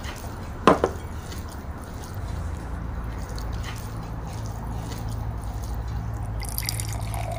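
Food tipped from a bowl onto a plate of rice and mixed by hand: a sharp knock about a second in, then faint wet squishing and small clicks over a steady low hum.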